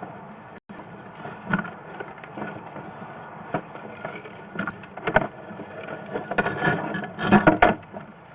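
Irregular knocks and clatter from handled equipment over a steady background hum, coming thicker and louder near the end.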